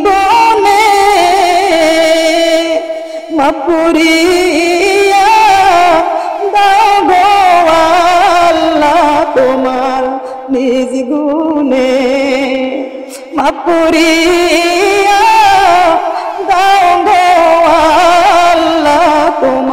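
A woman's voice singing a slow, melodic chant in long, wavering held notes, with short breaks for breath; a sung passage of prayer within the sermon.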